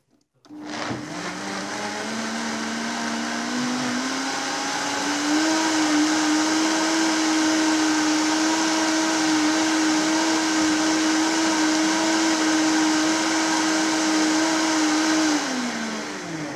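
Countertop blender running, blending soaked nuts and water into nut milk. The motor starts about half a second in and its pitch climbs over the first few seconds as it comes up to speed. It then runs steady before winding down and stopping near the end.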